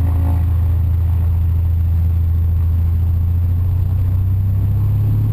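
A light high-wing airplane's engine running at high power, heard from inside the cabin during the takeoff roll: a loud, steady drone that shifts slightly in tone about four seconds in.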